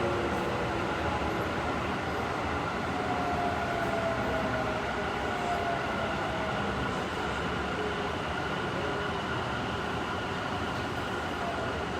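Tobu 50070 series electric train running, with steady wheel and track rumble and a thin inverter motor whine that falls slowly in pitch, as the train decelerates.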